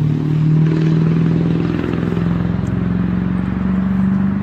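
An engine running steadily, its pitch rising slowly.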